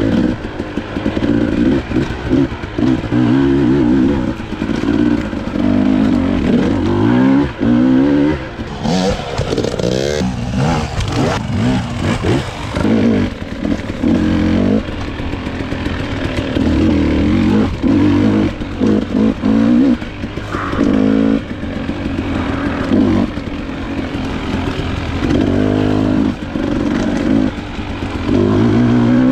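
Dirt bike engine revving up and falling back again and again while being ridden along a trail, with clattering knocks from the bike over rough ground. A stretch of hiss about a third of the way in.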